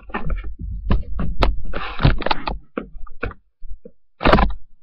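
A dog nosing at a webcam at point-blank range: an irregular jumble of knocks, bumps and rumbling handling noise on the microphone, with short snuffling noises.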